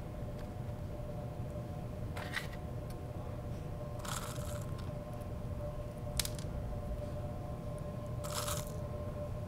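Candied pecans crumbled between fingers and sprinkled onto toasts: four brief crunches and rustles, roughly every two seconds, over a steady low hum.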